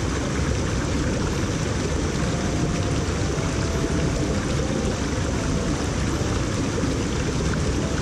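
Mountain stream running steadily over rocks and small cascades.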